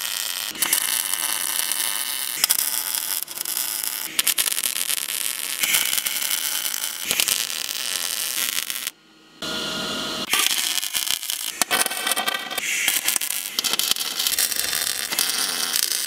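Wire-feed welder arc crackling steadily as beads are run on steel, broken by a few short pauses between welds, the longest about nine seconds in.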